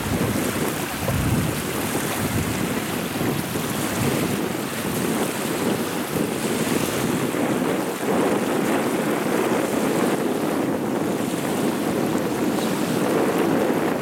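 Small waves lapping and breaking on a sandy river shore, a steady wash, with wind rushing across the microphone.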